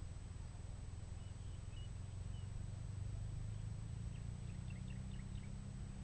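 Faint outdoor ambience of small birds chirping: a few short chirps, then a quick run of chirps about four to five seconds in. Under them is a steady low rumble of wind on the microphone.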